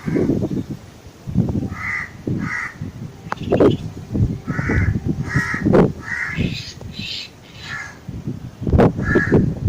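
Black drongo giving a string of short, harsh, scratchy calls, about ten in quick clusters and one more near the end, over a low, uneven background rumble.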